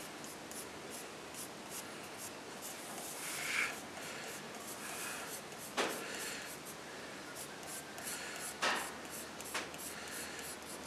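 Pencil scratching in short strokes on a sheoak handle blank, marking it out, with a few sharper knocks partway through.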